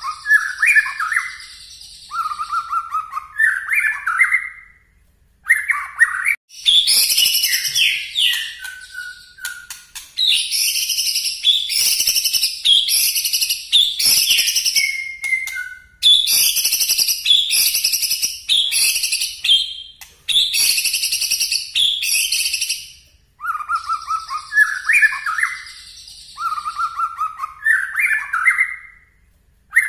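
White-rumped shama (murai batu) singing loudly in bursts. Rising whistled phrases near the start and end frame a long middle stretch of rapid, sharp, high repeated notes: the 'shooting' (nembak) song.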